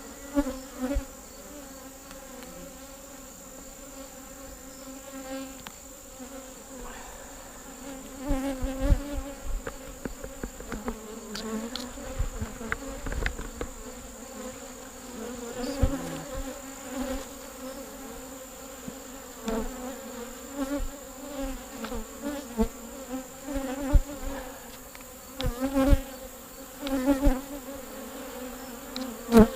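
Honeybees buzzing around an open hive: a steady hum throughout, with short low thumps here and there.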